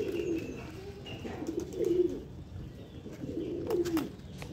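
Domestic pigeons cooing: several low, warbling coos, the loudest about two seconds in and again near the end, with a few faint clicks among them.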